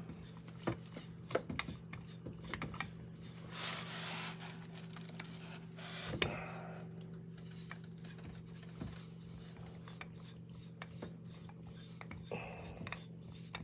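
Faint handling noises: scattered light clicks and soft rubbing as a skull prop is worked onto its threaded display stand, over a steady low hum.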